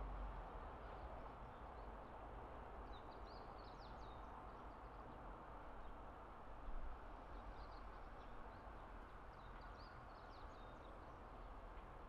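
Faint outdoor evening ambience: a steady low background hum with small birds chirping in short high calls, in one cluster about three to four seconds in and another from about eight to eleven seconds. A brief soft bump sounds about seven seconds in.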